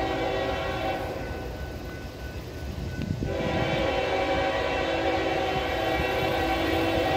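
Air horn of an approaching Norfolk Southern freight train's lead locomotive, an ES44AC, sounding a chord: one blast fading out about a second in, a pause of about two seconds, then a long blast from about three seconds in. A low rumble from the train runs underneath.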